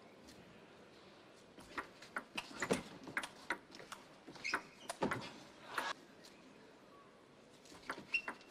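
Celluloid table tennis ball clicking back and forth between the players' rubber bats and the table in a fast rally, several sharp clicks a second. The clicks stop about six seconds in and start again near the end.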